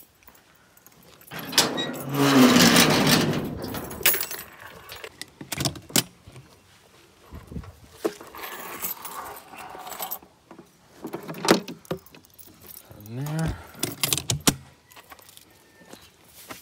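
Keys jangling and a steel gate's padlock being handled, then a loud scraping, rattling stretch about two seconds in as the metal gate is moved. Scattered clicks and knocks follow around a scooter's hard-shell top box.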